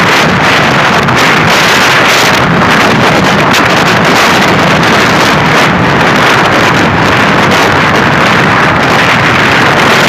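Strong, steady wind rush buffeting the microphone of a motorcycle riding fast on an open highway, with the bike's running engine underneath.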